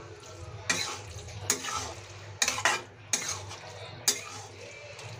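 A metal spatula stirs and scrapes a thick capsicum, potato and brinjal curry in a kadai, about six strokes that clink against the pan, over a low sizzle.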